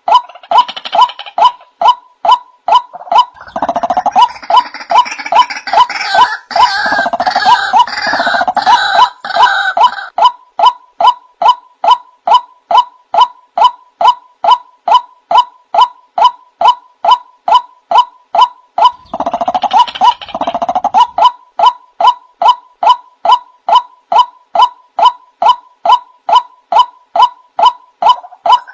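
Male white-breasted waterhen calling: one short note repeated over and over, about two a second, with two stretches of louder, rougher, crowded calling laid over it.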